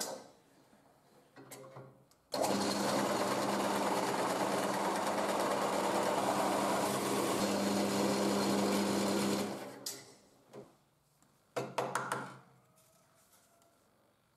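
Bench drill press running with an adjustable circle cutter boring a round hole through layered plywood: a steady motor hum with a wide cutting noise. It starts abruptly about two seconds in and stops near ten seconds, with a short second spell around twelve seconds.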